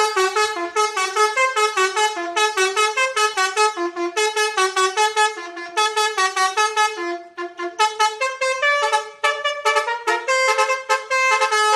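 Basuri telolet bus horn, an Indonesian electric multi-trumpet horn, playing a fast melody of short, quickly changing notes, with a brief dip about seven and a half seconds in.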